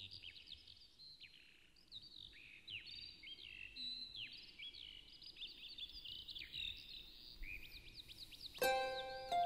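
A chorus of songbirds chirping, with many quick high chirps and falling whistles overlapping. About a second before the end, plucked-string music comes in over the birds.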